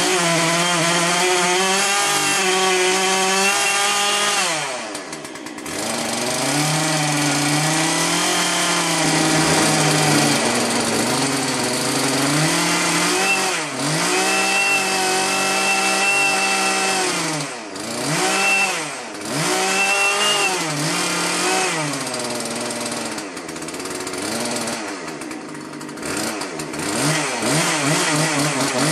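Two-stroke chainsaw engine running under load as it drives a three-phase motor used as a generator, its speed dropping and rising again several times. A high whine rises and falls with it.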